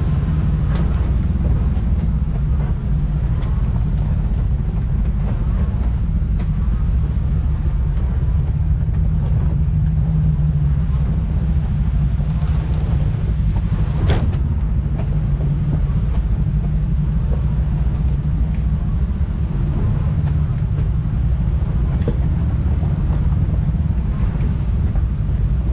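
Steady low rumble of a vehicle engine running, with a sharp click about fourteen seconds in.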